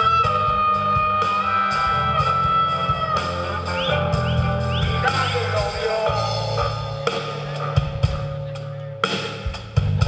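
Harmonica cupped against a vocal microphone, playing a solo over a live blues-rock band with electric guitar, bass and drums: one long held note, then shorter bent phrases.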